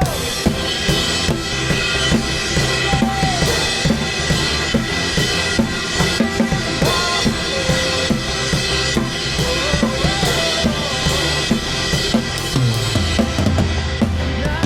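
Drum kit played through a drum cover: kick, snare and cymbals hitting steadily along with a backing song whose melody runs underneath. Recorded through the Insta360 GO Ultra's built-in microphone as a drum-cam sound test.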